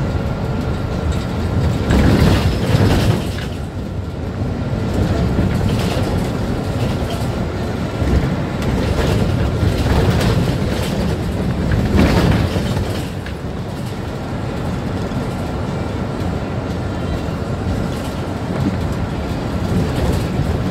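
Ride noise of a Mercedes-Benz Citaro C2 city bus under way: a steady low rumble of engine and road, swelling louder a few times, around two, ten and twelve seconds in.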